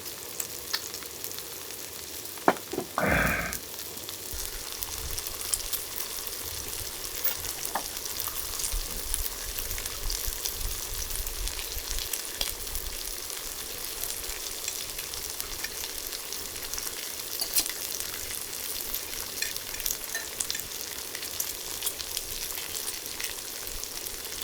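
Food sizzling and crackling in a hot pan, steady with fine spattering pops. About three seconds in there is a sharp knock followed by a short, louder rustle.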